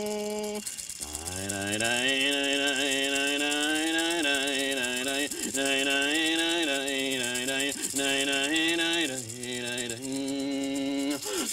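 A voice singing a slow, wavering ceremonial chant in long held phrases broken by short pauses, over the steady shaking of a rattle.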